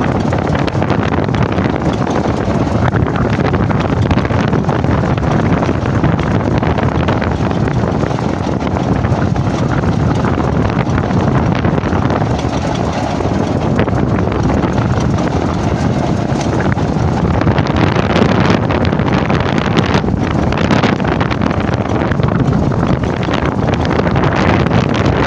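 Strong wind blowing and buffeting the microphone: a loud, steady rushing roar.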